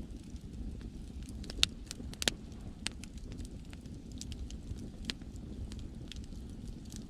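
Wood campfire crackling, with scattered sharp pops, the loudest about one and a half and two seconds in, over a steady low rumble of sea waves.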